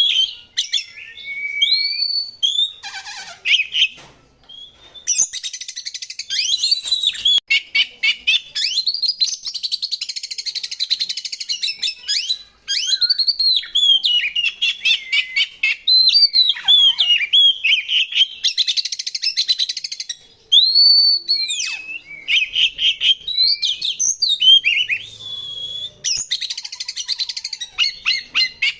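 Oriental magpie-robin singing continuously, as a lure song: clear whistled notes sliding up and down, broken several times by fast, harsh chattering runs.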